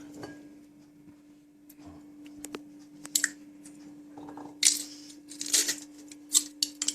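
Garlic cloves being squeezed through a garlic press: several short crushing sounds with clicks of the press, roughly a second apart in the second half, over a steady low hum.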